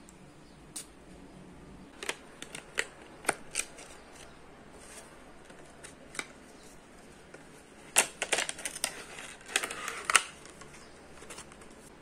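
Perfume packaging handled: a small glass bottle in a white plastic tray slid into its cardboard box, with light clicks, taps and scrapes of plastic and card. Scattered clicks come a few seconds in, and a busier run of clicks and scrapes about eight to ten seconds in.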